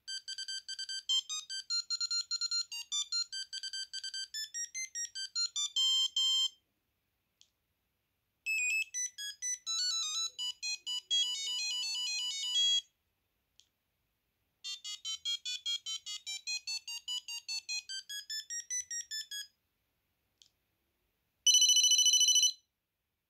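Sony Ericsson T68i mobile phone playing its built-in ringtones one after another. There are three short electronic melodies of quick beeping notes with brief silences between them, then a louder held tone of about a second near the end.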